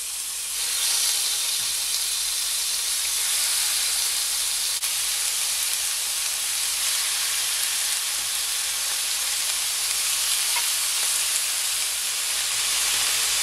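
Pieces of steak sizzling as they fry in hot olive oil, a steady hiss that grows louder about a second in.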